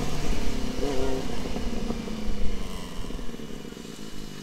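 Motorcycle engine with wind rush as the bike slows down, the engine note falling in pitch and the sound fading as the rider rolls off the throttle.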